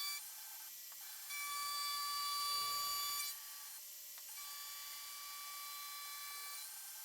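Steady high-pitched whine of a machine-tool motor running, louder for about two seconds from just over a second in, then settling back to a lower steady whine.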